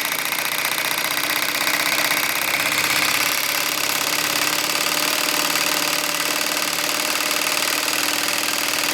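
AtlasUSA AT2150M industrial cylinder-bed sewing machine running steadily at speed, sewing a straight single-needle stitch; the needle bar gives a fast, even rattle.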